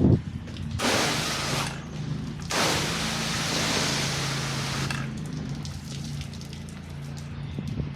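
Pressure washer spray hissing against the house in two bursts, a short one about a second in and a longer one from about two and a half to five seconds, over the steady drone of the pressure washer's engine.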